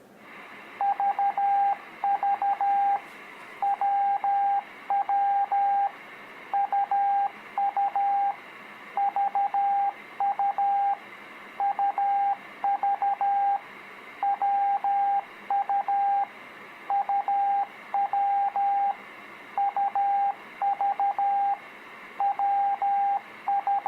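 Morse code practice tone sending the letters U, V and W in mixed order: a single steady beep keyed into short dits and long dahs, a letter every second or so, over a steady hiss like radio band noise.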